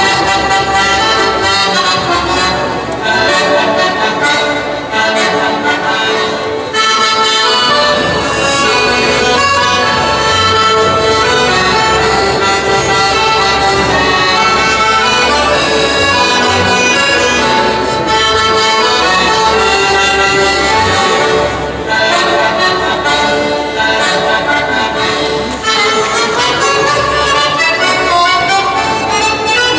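Live Italian folk dance tune played on accordion, with a double bass keeping a steady low beat underneath.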